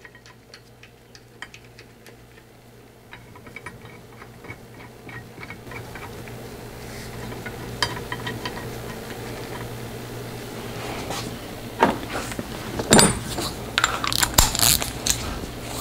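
Light metal clicks and ticks as a pinion flange holding tool is fitted and bolted onto a rear differential's pinion flange, with a louder clatter of metal clinks near the end.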